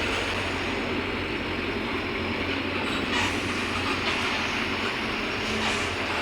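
Mercedes-Benz OF-1721 BlueTec 5 bus with its front-mounted diesel engine under way: steady engine and road rumble, with a couple of brief high squeaks.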